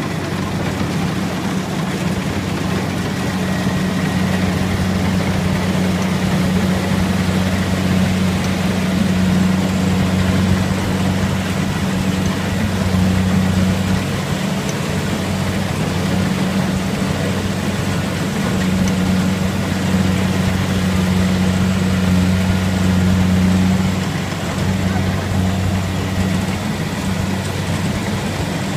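Diesel engine and running machinery of a Kubota rice combine harvester, working steadily as it cuts its way through standing rice.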